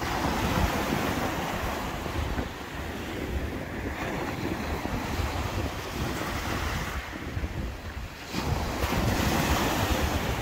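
Small waves breaking and washing up a sandy beach, with wind buffeting the microphone. The wash dips briefly and then swells again about eight seconds in.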